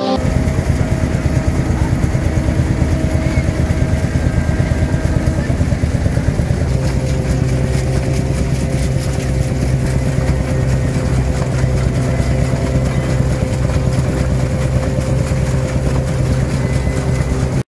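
Vintage belt-driven threshing machine and straw baler running together: a steady low mechanical drone with fast continuous rattling and clatter, the drone firming up about a third of the way in.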